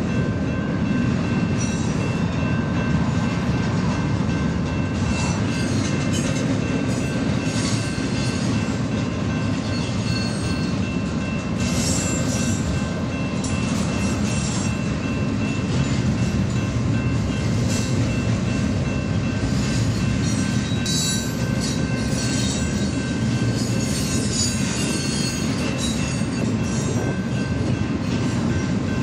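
Double-stack container freight train cars rolling past: a steady, even rumble of wheels on rail with thin high squeals from the wheels now and then.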